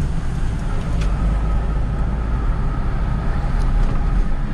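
A vehicle driving off: a steady low engine and road rumble, with a small click about a second in.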